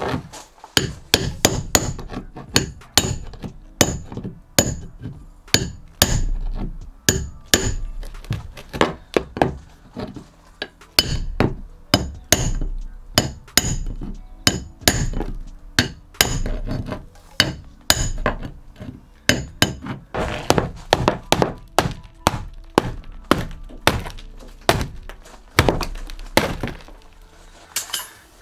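Steel chisel jabbed repeatedly by hand into rotten wood at the base of a boat's cabin window frame: a fast run of sharp knocks, a little over two a second, many with a brief metallic ring as the tip strikes. From about twenty seconds in, crunching and scraping as the rotten wood breaks away.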